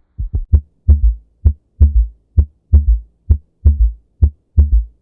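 Heart sounds heard through a stethoscope: a regular lub-dub a little faster than one beat a second, each second sound followed closely by a low extra thud, the third heart sound (S3 gallop). S3 is a sign of ventricular failure, though it can be normal in people under 40.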